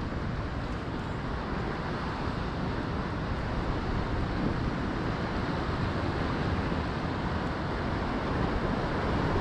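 Steady rushing wind and water noise on the open water, heaviest in the low end, with no engine tone.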